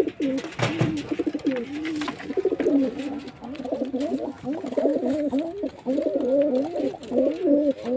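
Several domestic pigeons cooing in a loft, their low warbling coos overlapping without a break. There are a couple of short knocks in the first two seconds.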